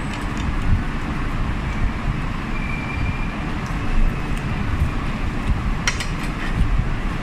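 Steady low rumble and hiss of restaurant background noise, with a short clatter of cutlery on a plate about six seconds in.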